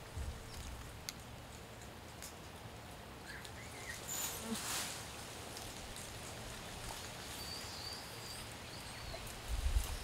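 Quiet outdoor bush ambience with a few faint bird chirps and a short rustle about halfway through. Low rumbles come in just after the start and again near the end.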